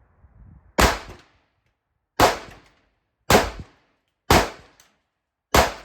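Five pistol shots from a compensated PSA 5.7 Rock chambered in 5.7×28mm, fired at a slow, steady pace about a second apart, each a sharp crack that dies away quickly.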